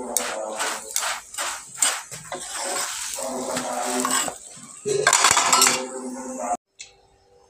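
Metal spatula clinking and scraping against an iron roti griddle, with utensils clattering and voices in the background. There is a louder stretch about five seconds in, and the sound cuts off suddenly near the end.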